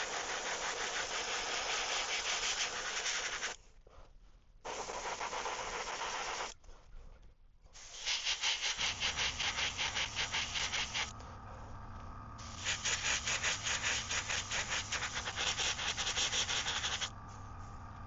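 Airbrush spraying paint in four bursts of hiss with short pauses between them. About nine seconds in, a steady low hum starts underneath, typical of the airbrush's compressor starting up.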